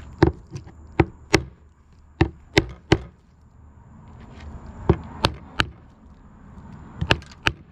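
Kitchen knife chopping on a cutting board while small tamban sprats are cut up. There are about a dozen sharp chops, mostly in quick sets of two or three about a third of a second apart, with short pauses between the sets.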